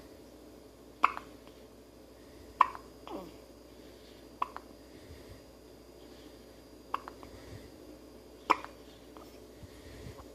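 A baby hiccuping: five short, sharp hiccups at uneven spacing, about one and a half to two and a half seconds apart.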